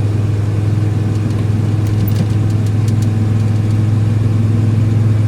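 Car engine and road noise while driving at a steady pace, an even low drone.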